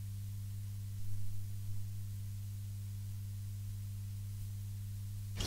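A steady low hum with a faint overtone, with a couple of slight soft bumps about a second in.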